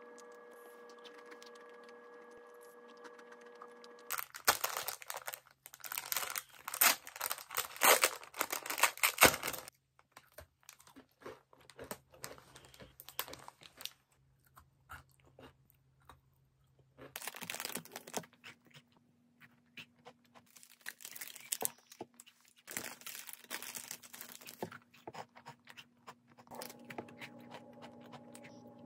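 Plastic cookie wrapper crinkling and rustling loudly for several seconds about four seconds in, then crunchy cookies being bitten and chewed close to the microphone, with more wrapper rustling in a second stretch later on.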